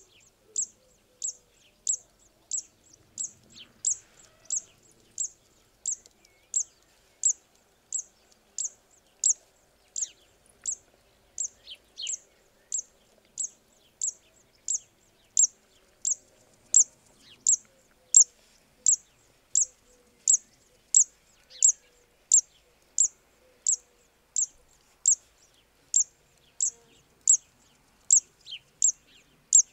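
Zitting cisticola singing its song: a long series of short, sharp, high 'zit' notes repeated evenly, about one and a half a second.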